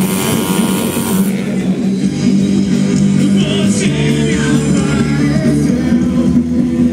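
Rock music playing, with long held low notes.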